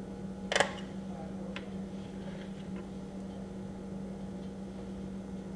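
A metal spoon clinking against a metal baking sheet while spooning wonton filling: one sharp clink about half a second in, a lighter tick about a second later, then a few faint ticks. A steady low hum runs underneath.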